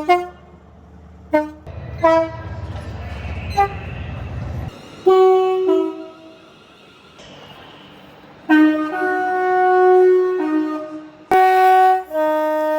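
Train horns sounding again and again, each note a chord of several steady tones. There are short toots over a low rumble in the first few seconds, then longer blasts, the longest lasting about two seconds.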